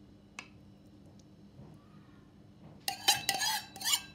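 A saucepan and spoon clinking and knocking several times in quick succession, starting about three seconds in, with short ringing tones after the hits. Before that, one light click.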